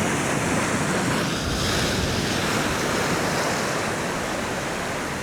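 Ocean swell breaking and washing against the rocks, a steady surf with wind buffeting the microphone; the wash swells a little about a second and a half in.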